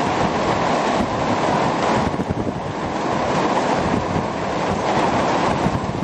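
Torrential rain pouring down onto a street, a steady dense hiss, with strong wind buffeting the microphone in low gusty rumbles.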